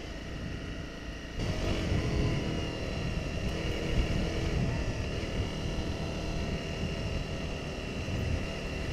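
Motorcycle engine running steadily with wind rush while riding a dirt track; the sound steps up louder about a second and a half in and stays there.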